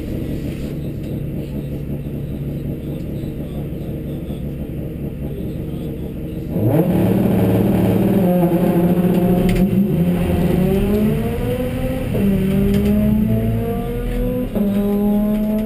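Honda Civic Type R EP3's four-cylinder engine heard from inside the cabin: running steadily at the start line, then about six and a half seconds in it is revved up sharply and held at launch revs. After a few more seconds it pulls away, the pitch climbing in each gear and dropping at two quick upshifts near the end.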